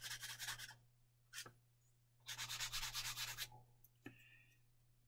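Quick, even back-and-forth rubbing strokes of a hand tool on a small plastic model-kit part, faint. Two bursts of about a second each, one near the start and one past the middle, with a light click between.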